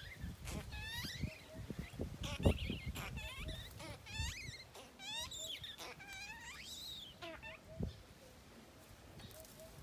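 Young macaque giving a run of high, wavering squeals that rise and fall in pitch, a baby monkey's crying, over the rustle and knock of tree branches being shaken. A sharp knock about two and a half seconds in is the loudest sound, and the calls die away about three-quarters of the way through.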